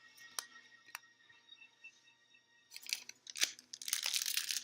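A few faint clicks, then from about three seconds in the crinkling and crackling of a foil booster-pack wrapper as trading cards are handled.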